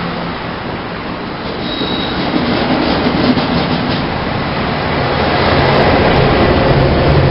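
Train rolling past close by: a steady rumble of wheels on rail that builds toward the end, with a brief high wheel squeal about two seconds in.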